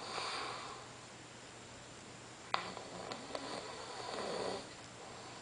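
Snoring in a sleeper's breathing: a short breath right at the start, then a sharp click about two and a half seconds in, followed by a longer snoring breath of about two seconds.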